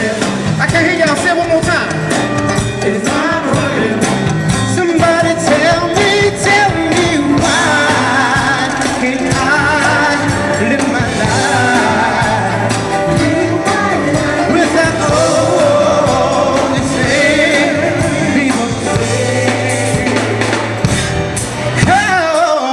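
Live band playing a song with a lead singer, loud and steady, with a short drop near the end.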